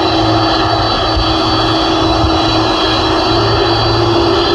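Boeing 747 taxiing, its four jet engines running with a steady roar, a high whine and a low hum; the hum edges up in pitch near the end.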